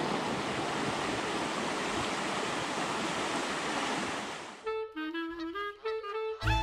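Steady rush of a fast, shallow creek over rocks, cut off suddenly about four and a half seconds in by background music: an upbeat jazzy tune led by a woodwind.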